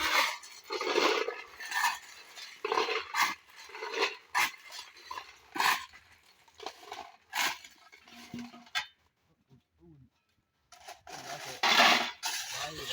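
Irregular clinks and scrapes of metal on hard surfaces, with a break of near silence about nine seconds in, then a louder cluster near the end.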